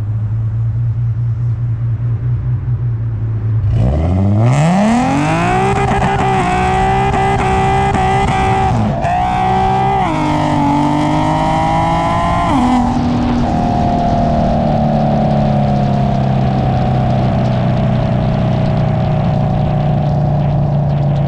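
Infiniti G37 sedan's 3.7-litre VQ V6 engine, heard from behind the car: running steadily at low revs, then accelerating hard from about four seconds in with revs climbing, a quick upshift around nine seconds and more climbing. About thirteen seconds in the revs drop and settle into a steady cruise that slowly eases off.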